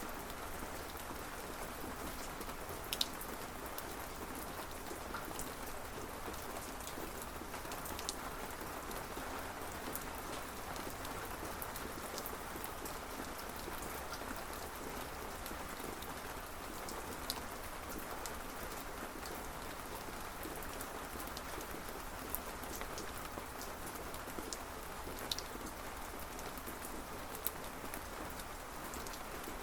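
Steady rain falling, an even hiss of drops with now and then a single louder drop striking close by.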